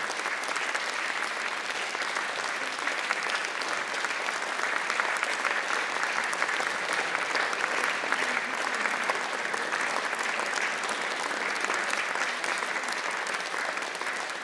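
Audience applauding steadily after a choral piece.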